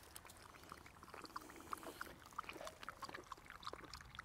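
Small dog lapping water from a bowl: a faint run of quick, irregular wet clicks.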